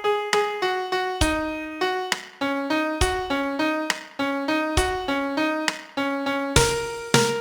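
Piano sound playing a song's vocal melody one note at a time, each note struck and fading, with a heavier low strike about every two seconds marking the bar of a 6/8 rhythm.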